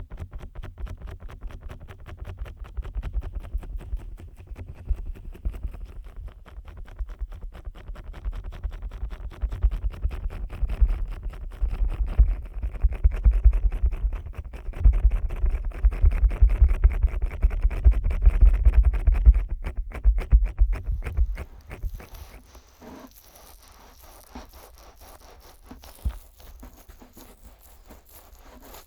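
Fingers rapidly rubbing and pressing on the silicone ears of a 3Dio binaural microphone, slicked with Vaseline. The strokes come in a dense run, heavy in the low end, and build toward the middle; about 22 seconds in they drop to lighter, quieter strokes.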